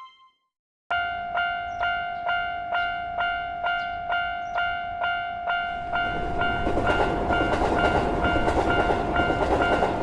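Railroad crossing bell starting about a second in and ringing about twice a second. About six seconds in the rumble of a passing train joins it under the bell.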